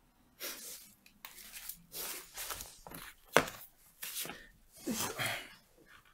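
Rustling, shuffling handling noises as a person moves in close and sits down on a leather sofa, with a sharp knock about three and a half seconds in.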